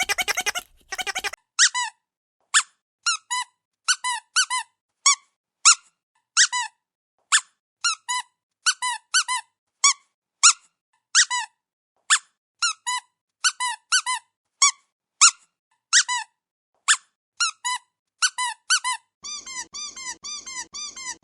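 Squeaky rubber dog toy being squeezed: short pitched squeaks, singly or in quick pairs, about one or two a second. Near the end, a faster run of squeaks comes in over a faint low hum.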